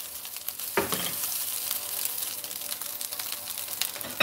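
Chicken fried rice sizzling in a non-stick frying pan as it is stirred with a plastic spatula: a steady high sizzle full of small crackles, with a louder scrape of the spatula about a second in.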